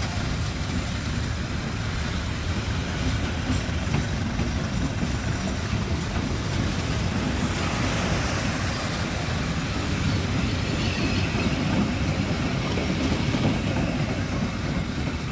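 Passenger train rolling past on the track: a steady noise of wheels on rail, with no horn sounding.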